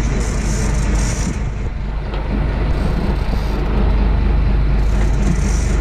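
Charter fishing boat's engine running steadily underway, a constant low rumble with hiss from wind and water over it.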